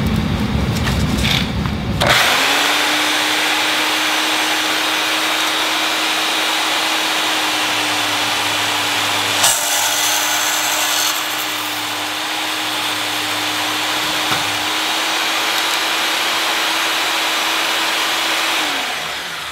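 Milwaukee 6230 deep-cut portable band saw, mounted upright in a stand. It switches on about two seconds in and runs steadily as it cuts through small square metal tubing, with a sharp click about halfway. Near the end it is switched off and the motor winds down with a falling pitch.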